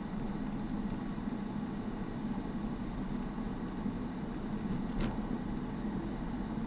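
Steady road and engine noise heard inside a moving car's cabin, with one sharp click about five seconds in.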